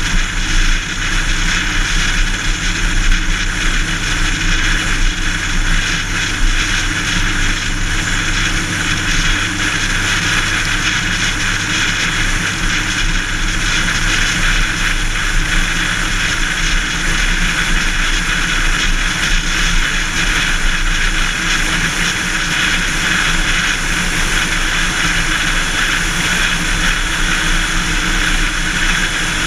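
A car driving at highway speed, heard from a camera mounted outside the car: a steady rush of wind and tyre noise with a low engine hum, part of which drops away about halfway through.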